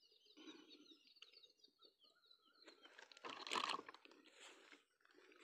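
Faint: a small bird chirps repeatedly, a quick run of short high notes. About halfway through, crackly rustling comes in, the loudest part: hands gripping and handling a freshly caught small fish to unhook it.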